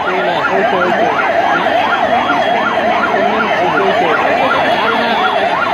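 Emergency vehicle siren sounding in a fast yelp, its pitch sweeping up and down about three times a second without a break, over the steady din of a large crowd.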